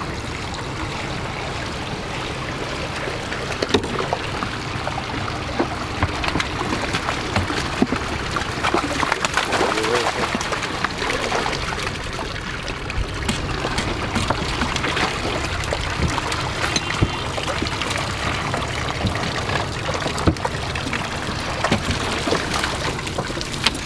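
Water pouring and trickling out of a sunken car as it is winched out of the river, with small splashes and drips throughout. A low steady engine hum runs underneath.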